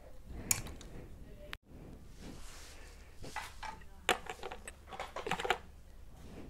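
Light clicks and rustles of small plastic toy pieces being handled.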